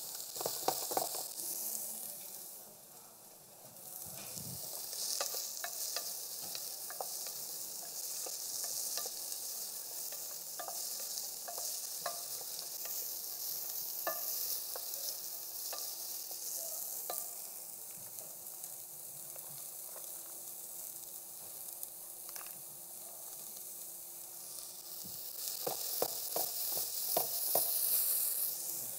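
Diced onions and celery sizzling in butter in a stainless steel pot, sweating over the heat, while a wooden spoon stirs them and knocks against the pot. The stirring is busiest at the start and again near the end.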